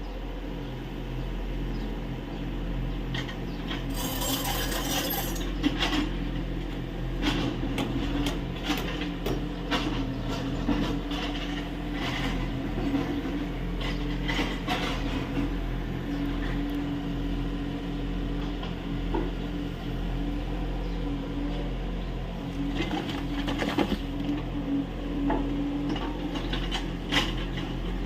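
Kubota U30 mini excavator's diesel engine running steadily while digging, with irregular clanks and knocks from the bucket and arm working the earth, and a brief hiss about four seconds in.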